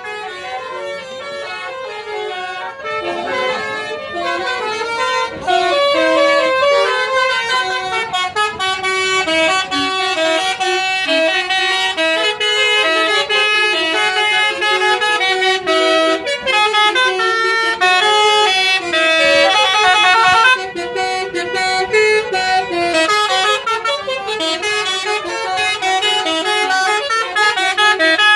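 Tour bus's telolet basuri multi-trumpet musical horn playing a tune of quick stepped notes, loud and without a break.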